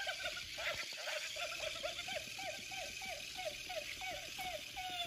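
Battery-powered bouncing plush dog toy running: a buzzing motor under a quick string of short falling electronic tones, about three a second, ending on one longer falling tone.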